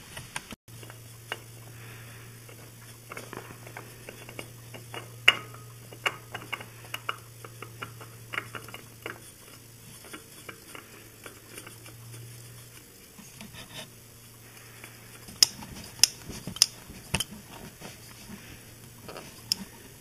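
Scattered light clicks and small metallic knocks of hand work on a motorcycle's engine as a new oil filter is fitted onto its mount and turned by hand, with a few sharper, louder clicks about three-quarters of the way through. A steady low hum runs beneath for roughly the first two-thirds, then stops.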